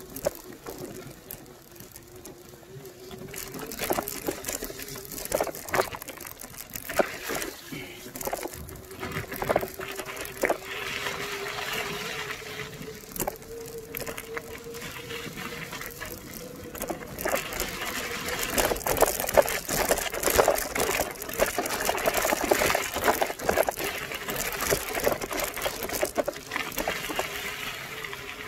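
Bicycle riding over a wet dirt trail and loose gravel: the tyres crunch and the bike rattles over bumps and stones, with a faint steady hum underneath. It gets louder and busier in the second half.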